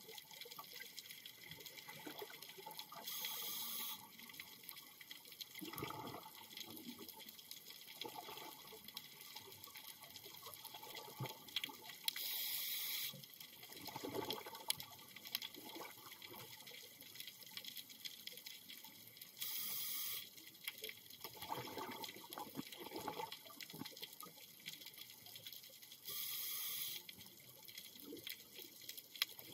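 Scuba diver breathing through a regulator underwater: a hiss of inhalation about a second long comes four times, roughly seven seconds apart, with bubbling exhalations between, over a steady high crackle.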